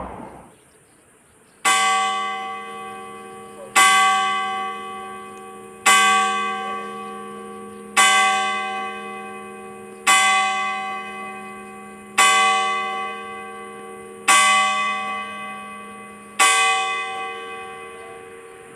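Church tower bell struck eight times by the clock hammer, about two seconds apart, tolling the hour of 8 o'clock (20:00). Each stroke rings out with a bright metallic ring and is still fading when the next one falls.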